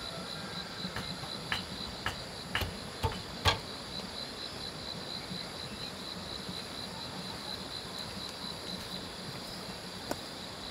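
An insect, likely a cricket, chirping steadily in a high, even pulse of about five chirps a second. Several sharp knocks fall in the first few seconds, with one more near the end.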